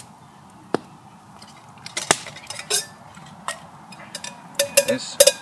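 Clinks and knocks of a stainless steel pot being handled while rummaging in it for garlic. Scattered single clicks give way to a bunch of louder, briefly ringing metal clinks near the end.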